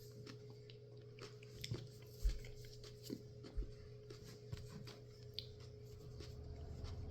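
Quiet chewing and small mouth clicks from eating a raw chili pepper pod, with two soft thumps and a steady faint electrical hum underneath.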